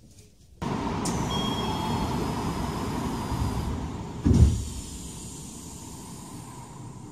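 Odakyu commuter train at a station stop: its compressed-air equipment lets out a loud hiss that starts abruptly about half a second in and lasts about three seconds, followed by a single heavy thud, then a quieter steady background noise.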